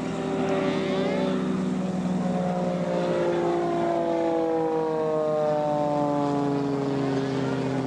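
Subaru engine of a homemade helicopter running steadily and loud, its pitch sliding slowly up and down as the engine speed changes.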